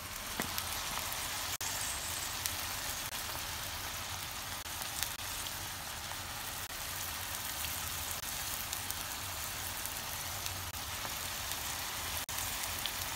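Ackee and saltfish with onion and tomato sizzling in hot oil in the pot: a steady hiss with light crackles.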